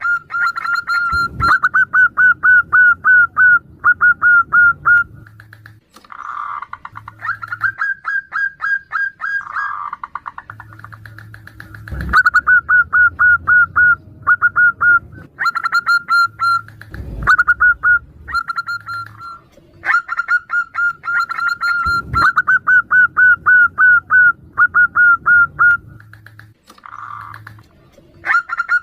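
Zebra doves (perkutut) calling back and forth, each phrase a quick run of short staccato notes lasting a few seconds, with brief gaps between phrases. A few sharp clicks cut in now and then.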